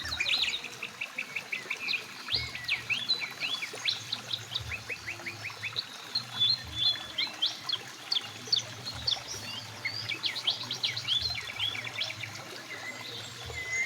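Songbirds singing many quick, sweeping chirps and trills over the steady rush of a flowing mountain river.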